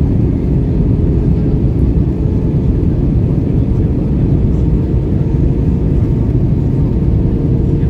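Steady low roar of an Airbus A320 airliner, with a constant hum held over it.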